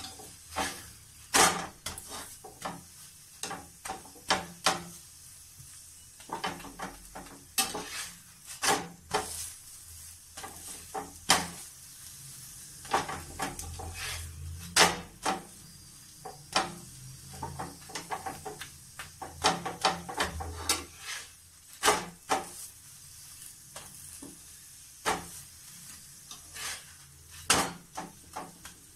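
Paratha frying in oil on a nonstick tawa, sizzling, with irregular scrapes and taps of a steel spatula pressing it against the pan.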